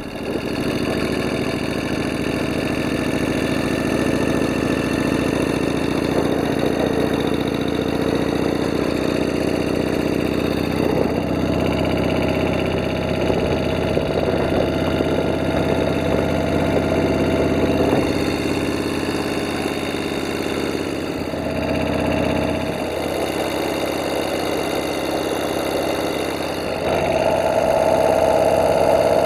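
Harley-Davidson FXR's V-twin engine running steadily at idle, stepping up in loudness and pitch near the end as it is revved a little.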